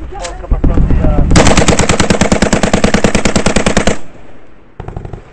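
Close automatic gunfire: a long burst of rapid, evenly spaced shots that stops abruptly about four seconds in, followed by a few more shots near the end.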